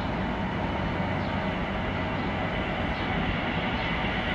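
Airbus A319-114's CFM56 jet engines at takeoff power on the takeoff roll: a steady rumble with a high whine held over it.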